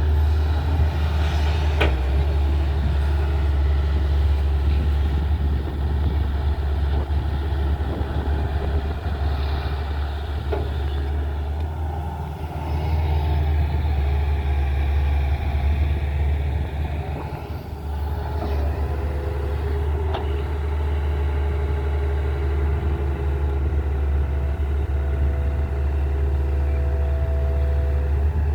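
Tata Hitachi excavator's diesel engine running steadily as it works, its loudness dipping briefly twice, with a few faint knocks.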